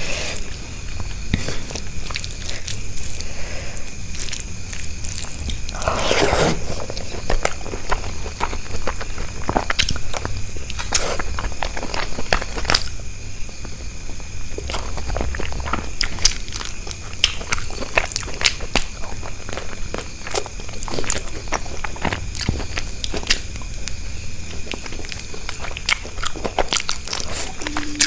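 Close-miked eating: a person biting and chewing crunchy food, with many sharp crunches throughout and a louder crunch about six seconds in.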